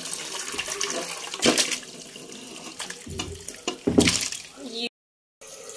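Country-chicken curry being poured from one metal vessel into a larger metal pot: liquid pouring and splashing, with louder splashes about one and a half and four seconds in as chicken pieces slide in. The sound breaks off for a moment near the end.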